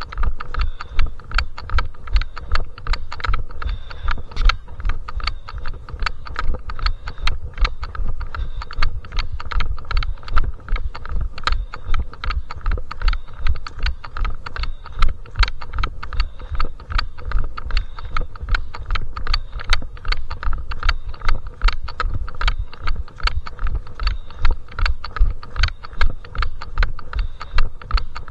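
Steady footfalls of a trail runner on a mountain path, heard through a body-worn camera as a regular rhythm of dull thumps with sharp clicks of feet, and possibly pole tips, on stony ground.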